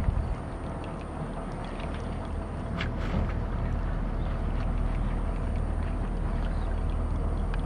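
Steady low outdoor rumble with a faint hiss, and one brief sharp sound about three seconds in.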